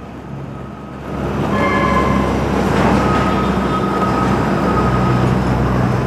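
Riding a motorcycle in city traffic: steady engine and road noise that grows louder about a second in, with a low hum and faint thin whining tones over it.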